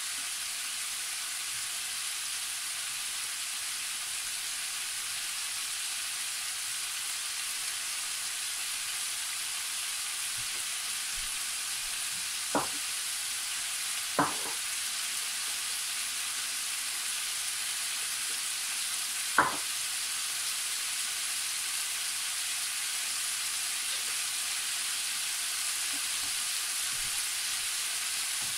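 Diced potatoes and carrots frying in a large roasting pan on the hob, a steady sizzle throughout. Three short sharp clicks stand out about halfway through.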